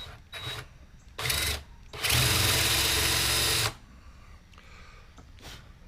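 Power drill boring into aspen wood: a few short trigger bursts, then a steady run of nearly two seconds, and one more short burst near the end.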